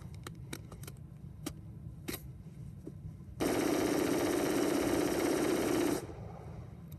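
A few light clicks, then a continuous burst of rapid gunfire lasting about two and a half seconds, starting suddenly and stopping suddenly.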